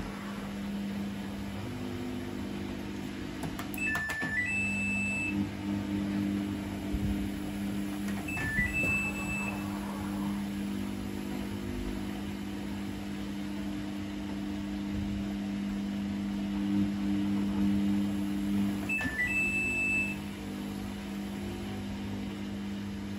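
Samsung WF80F5E2W4W front-loading washing machine running with a steady motor hum as the drum tumbles wet laundry. A click comes at the very start, and a short rising three-note beep sounds three times: about four seconds in, near nine seconds and near nineteen seconds.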